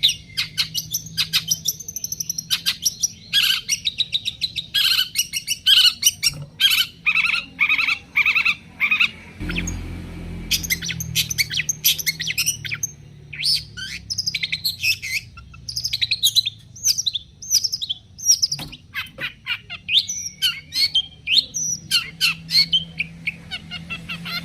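Long-tailed shrike (cendet) singing a fast, chattering song of rapid short notes, pausing briefly about ten seconds in.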